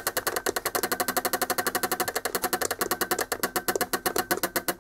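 Bosch common-rail fuel metering solenoid valve clicking rapidly and evenly, about a dozen clicks a second, as PWM pulses from a signal generator drive it. The valve had been stuck and is now freeing up and opening.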